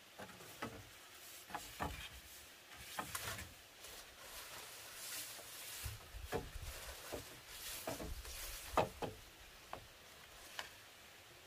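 Irregular hollow knocks and clatter of bamboo poles being lifted and set across a bamboo frame, with the loudest knock about nine seconds in.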